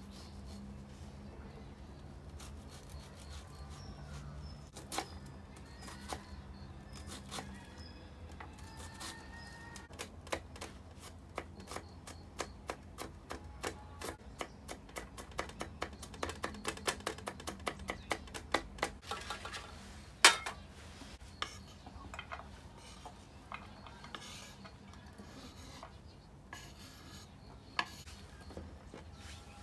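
Opinel folding knife chopping an onion on a wooden cutting board: scattered cuts at first, then a fast run of chops, several a second, from about ten seconds in, with one loud knock around twenty seconds. Near the end the blade scrapes the diced onion across the board.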